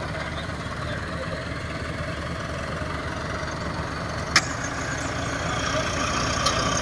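Farm tractor's diesel engine running steadily under heavy load as it pulls a stuck, loaded trailer, with a single sharp click about four seconds in.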